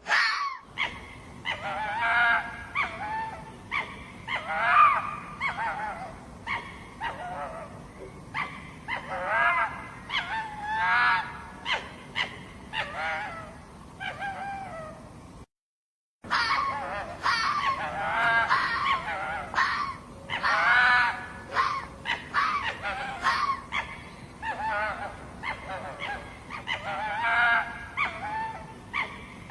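Hoary fox calling over and over with short, high, honking yelps, stopping for a moment about halfway.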